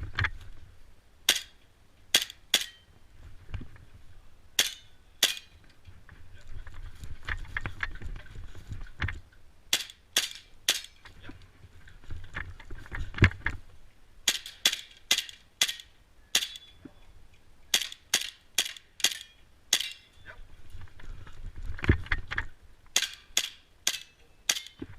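Airsoft pistol fired in quick strings of shots, some in rapid pairs, with pauses between groups as the shooter moves between targets.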